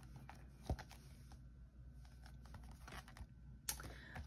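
Faint handling noise from a cardboard album package being turned over in the hands. There is a soft knock just under a second in and a short scrape near the end.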